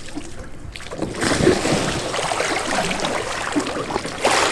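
Water splashing and sloshing around a sea kayak and wooden Greenland paddle as the kayak goes over and rolls back up in a layback roll. The splashing starts about a second in, with a louder splash near the end.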